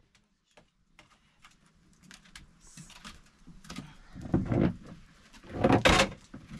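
Small clicks and crackles at an open wood cooking fire, then two louder scraping, knocking handling sounds about four and a half and six seconds in, the second the loudest, as a domed iron bread griddle is lifted and tilted off the hearth and firewood is pushed in.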